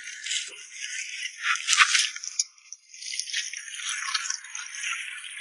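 High-pitched rattling and scraping with a few sharp clicks. The loudest clatter comes just under two seconds in, and there is a short quiet gap soon after.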